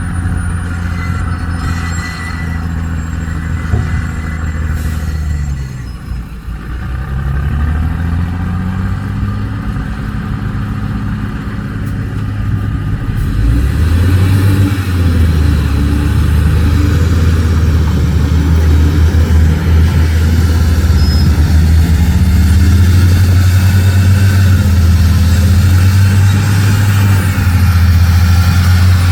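Heavy diesel dump truck engine running, its revs dropping and climbing back about six seconds in and changing again twice later. It gets louder about halfway through.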